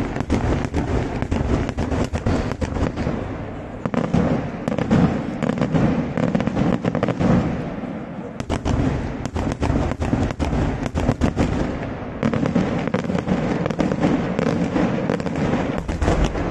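Daytime fireworks display: a rapid, continuous barrage of aerial shell bursts and firecracker bangs, many sharp reports in quick succession, thinning briefly a few times before picking up again.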